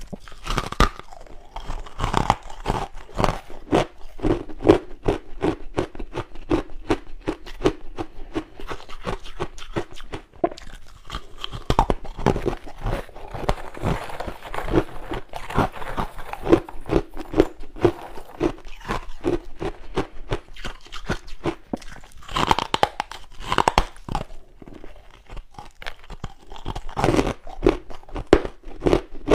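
A person biting and chewing freezer frost: dense, rapid, irregular crunching, with a few louder bites about 22 to 24 seconds in and again about 27 seconds in.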